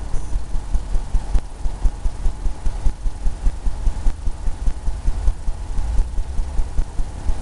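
Oil paintbrush dabbing and scrubbing paint onto a stretched canvas, a fast even run of soft low thumps at about six a second.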